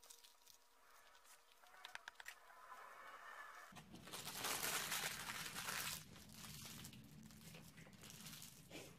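Paper taco wrapper crinkling and being crumpled, loudest from about four to six seconds in, with a few crisp crunches a couple of seconds earlier. A low steady hum comes in just before the crumpling.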